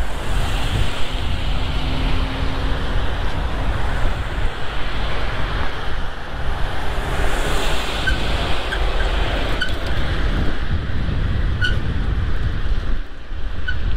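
Wind buffeting the microphone while riding a bicycle, a loud, steady rumbling rush. A few faint, short high chirps sound in the second half.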